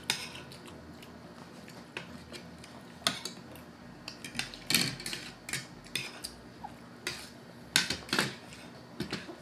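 Cutlery clinking against plates and bowls during a meal, in scattered irregular clicks.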